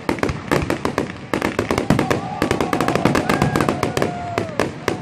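Fireworks going off in a dense, rapid barrage of sharp cracks and bangs, many per second with no break.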